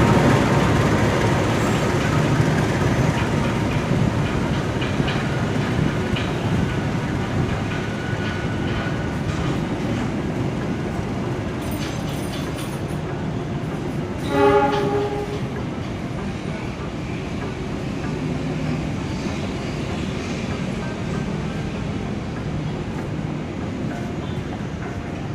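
Train rolling through the station, its wheels clattering on the rails in a steady rumble that slowly fades. About halfway through comes one short train horn blast.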